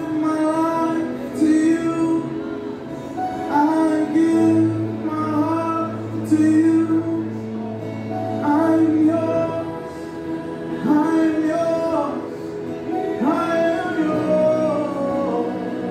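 Live worship music from a band on stage with voices singing slow phrases over sustained low notes.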